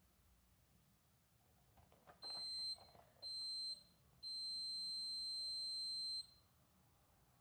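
An electronic beeper sounds three steady high-pitched tones: two short ones, then one long one of about two seconds. Just before the first, there is faint rustling.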